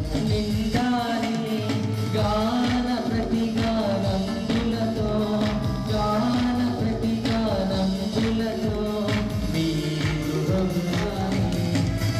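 Live song: a man singing over a Korg M50 synthesizer keyboard and electronic drum pads, with a steady beat and a bass line.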